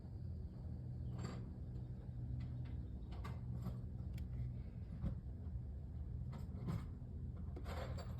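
Scattered light clicks and knocks of hand tools and metal parts being handled during engine work, over a steady low hum.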